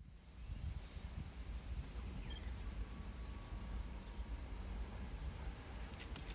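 Rural summer ambience: insects droning steadily at a high pitch over a low rumble, with a few short faint bird chirps. A distant train is approaching, and the rumble swells slightly near the end.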